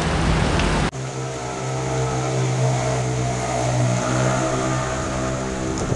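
Rain falling on wet pavement; about a second in the sound cuts abruptly to a vehicle engine idling with a steady hum over the continuing rain. The hum stops near the end.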